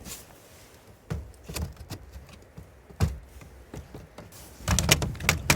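Irregular knocks and clicks of parts being handled and set in place, busiest near the end, over a faint low hum.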